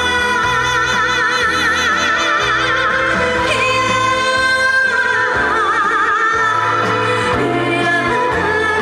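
Live song: a woman singing long held notes with wide vibrato over a backing track with a pulsing bass line.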